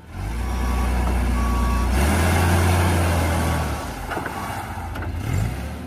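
Forklift engine running with a low rumble that swells about two seconds in and eases off again near four seconds. A few faint reversing-style beeps sound in the first second and a half.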